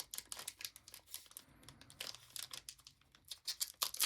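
Trading-card pack wrapper crinkling as it is handled, a run of small crackles, with a louder burst of crinkling right at the end.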